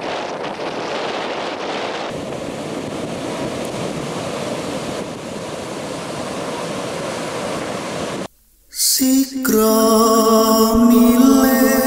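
Ocean surf breaking on a beach, a steady rushing wash with some wind, for about eight seconds; it cuts off, and after a short gap music with long held notes begins.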